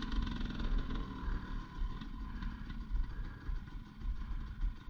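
Dirt bike engines idling while the bikes stand still, an uneven low rumble.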